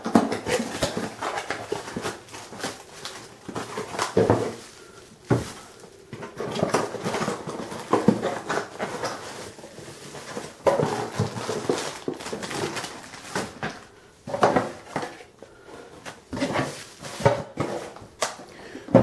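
Plastic bubble wrap and a cardboard box being handled as a barcode scanner is unpacked: irregular crinkling and rustling, with scattered sharp knocks and clicks.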